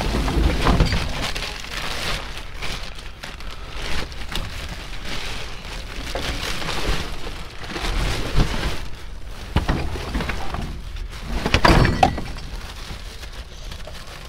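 Plastic trash bags and plastic wrap rustling and crinkling as junk is rummaged through and shifted by hand, with scattered knocks of cardboard boxes and other items being moved; a louder clatter near the end.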